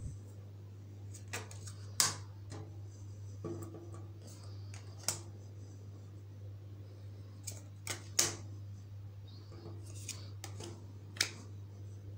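Tarot cards drawn from the deck and set down on a glass tabletop: a string of about ten sharp taps and slaps at uneven intervals.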